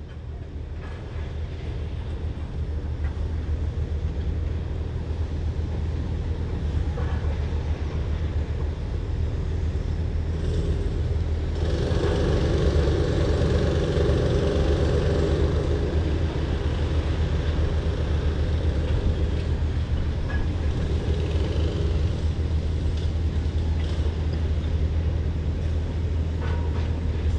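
A steady low mechanical rumble, like a passing vehicle or train, that swells about twelve seconds in and stays loud.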